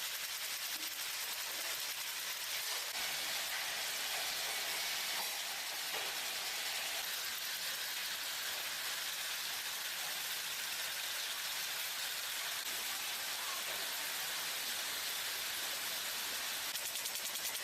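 Steady, unbroken machine hiss with no pauses or distinct strokes.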